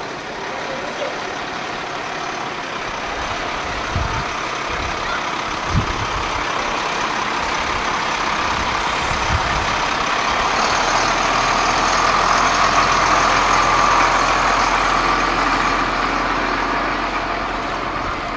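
Heavy dump truck's diesel engine running as the truck drives slowly past, growing louder to its closest point about two-thirds through and then fading away.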